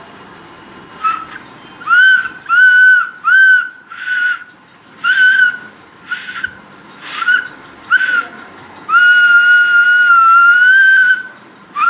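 A small conch shell (shankhi) held between two fingers and blown as a whistle: a run of short toots on one steady pitch, then one long held note near the end.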